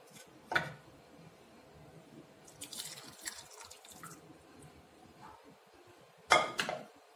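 Hot milky tea (chai) poured from a steel saucepan through a steel tea strainer, trickling and dripping. A sharp clink comes about half a second in, and a couple of louder metal knocks come near the end.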